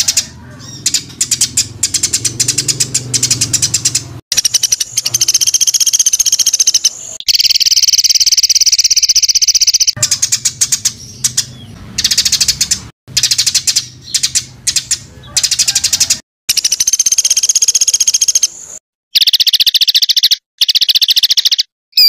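Songbird singing long runs of very rapid, densely repeated high notes, the sharp rapid-fire 'tembakan' phrases used as tutor song for competition birds. The runs stop abruptly several times with short silent gaps between them.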